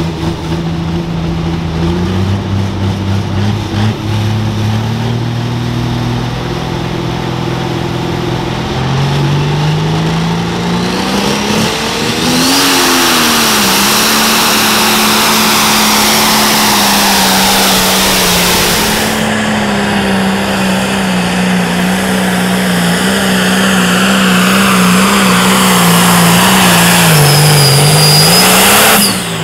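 Turbocharged diesel engine of a 4.1 Limited Pro Stock pulling tractor running low, then revving up about nine seconds in and running loud at full throttle under load down the track. The engine pitch holds high with small dips and rises, and the sound cuts off abruptly near the end.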